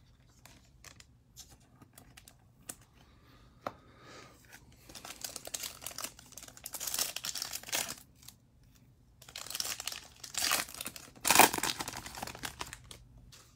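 Foil wrapper of a Panini Prizm baseball card pack being torn open and crinkled by hand, in two bouts of crackling, the louder one near the end. Faint clicks of cards being handled come first.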